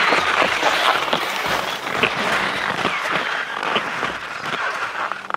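Touring skis scraping and sliding over hard, wind-crusted snow, with the crunch and click of ski poles planting in the crust.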